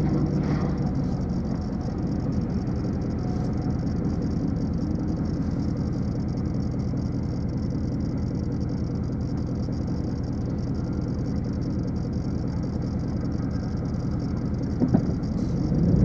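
Pickup truck driving slowly, its engine running with a steady low rumble and road noise. A small click near the end.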